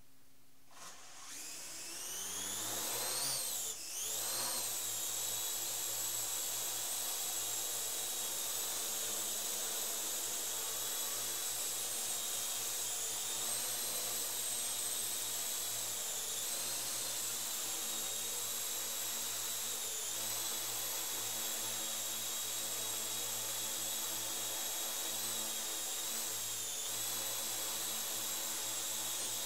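Parrot AR.Drone quadcopter's four electric rotors spinning up about a second in with a rising whine as it lifts off, then a steady high buzzing whine while it flies around the room, the pitch shifting slightly now and then as it manoeuvres.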